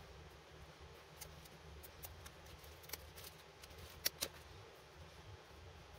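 Faint handling sounds of a rubber shoe sole and a paper pattern being moved about on a cutting mat: light scattered clicks and rustles, with two sharper taps in quick succession about four seconds in, over a low steady hum.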